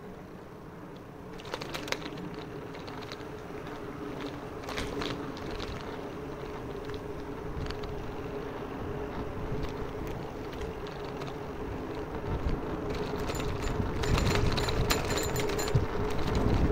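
Outdoor street ambience recorded while walking: a steady low hum with scattered light clicks and rustles, and wind buffeting the microphone, growing louder over the last few seconds.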